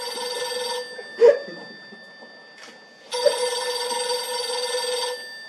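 Telephone ringing in long rings: one ring cuts off about a second in, and after a pause a second ring of about two seconds follows.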